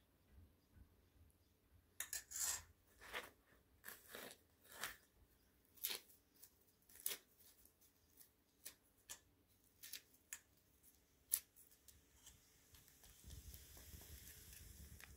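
Dry, thin Iranian flatbread being torn by hand into small pieces over a bowl of abgoosht broth: a run of short, irregular crackling tears. Near the end a faint steady hiss comes in.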